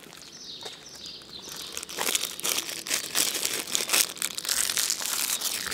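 Plastic wrapper of a Chocoramo snack cake crinkling close to the microphone as it is opened. A dense run of crackles starts about two seconds in.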